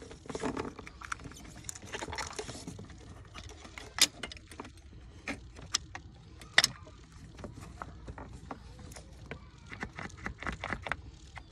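Steel tongue-and-groove pliers clicking, clacking and scraping against a BMW intake/exhaust camshaft (VANOS) solenoid as it is gripped and worked out of the engine, with irregular sharp metal clicks and two louder clacks near the middle.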